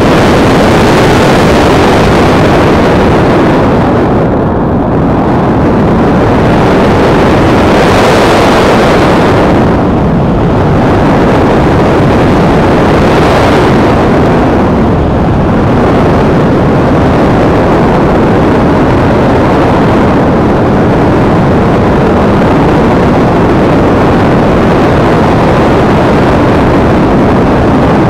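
Loud rushing airflow on the microphone of a camera riding on an EasyStar RC model plane in flight, a steady rumble that swells brighter twice, about a third of the way in and again about halfway.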